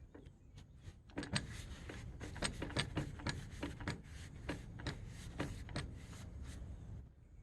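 Hand scrubbing on the lathe's metal, a rough rasping with many irregular clicks and knocks. It starts about a second in and stops near the end.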